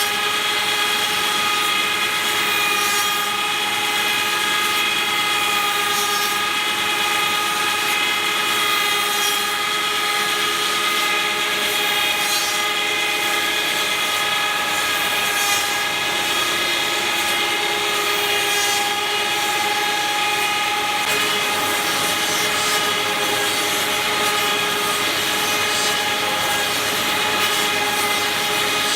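Cosma SKS 7 copy milling and sanding machine running under power: a steady mechanical whine made of several high, steady tones over a hiss. The tones shift slightly about two-thirds of the way through.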